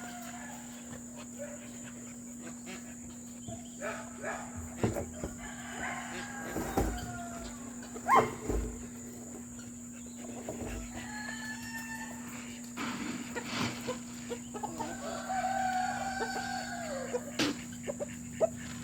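Chickens calling, with a rooster crowing: one long crow about three quarters of the way through that falls off at its end, among shorter calls and a few sharp knocks.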